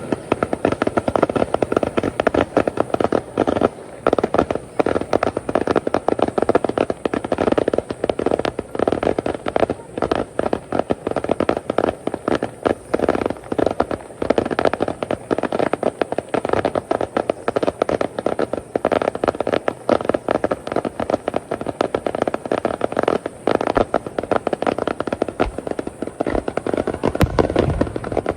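Aerial fireworks display: a dense, continuous barrage of rapid bangs and crackles from many shells bursting at once.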